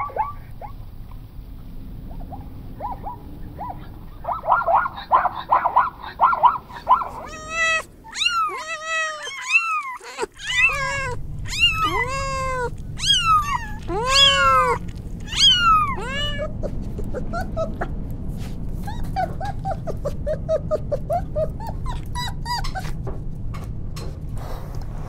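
Kittens meowing, one high rising-and-falling mew after another; these are the loudest sounds, in the middle. Before them comes a quick run of short yelping calls, and after them fainter short calls over a low steady hum.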